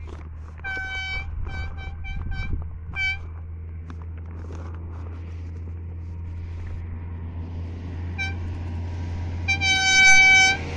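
Vehicle horn honked in a quick run of short toots, then a single toot, then a long blast near the end, over a steady low engine hum.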